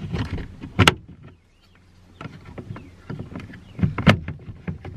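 Plastic pry tool working a Nissan power window master switch panel loose from the door trim: irregular plastic clicks, scrapes and knocks, with sharper clicks about a second in and again about four seconds in.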